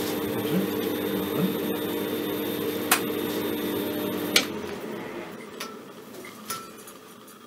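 Steady electrical buzz from the high-voltage supply driving a glowing gas discharge tube, with an occasional sharp tick. A loud click about four and a half seconds in, as it is switched off, cuts the buzz, leaving faint handling clicks.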